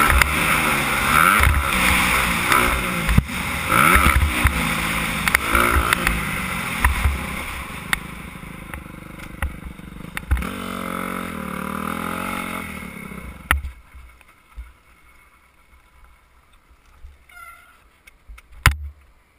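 Suzuki 250 motocross bike engine revving up and down through the gears while riding, heard from a helmet camera. It eases off as the bike slows, then falls quiet about 13 seconds in, leaving only a few small knocks and clicks.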